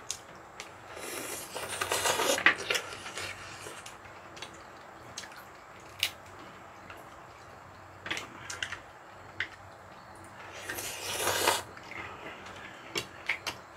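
Eating at the table: chewing and slurping of mussel jjamppong ramen, with two longer noisy slurping stretches, about a second in and near eleven seconds, and a few sharp clicks between them.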